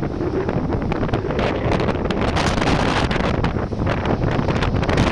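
Strong storm wind gusting and buffeting the microphone in a loud, continuous rumbling roar that surges and flickers with each gust.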